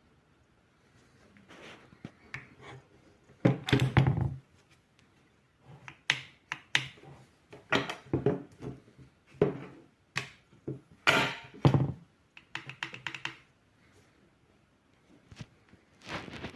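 Handling noise from a pump-action shotgun: irregular clicks, clacks and knocks in clusters, the loudest about three and a half seconds in and again around eleven seconds.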